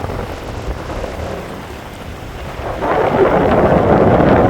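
Gusty hurricane wind rumbling and buffeting against the microphone, with a louder rush of wind and water noise swelling about three seconds in.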